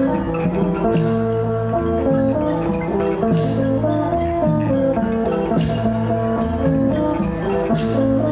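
Lively Thai folk dance music: melodic instruments playing a busy tune over a steady percussion beat.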